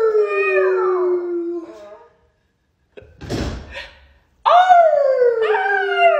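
Husky puppy howling: a long howl that falls in pitch and fades out about two seconds in, then a second falling howl about four and a half seconds in. A short breathy burst comes between the two howls.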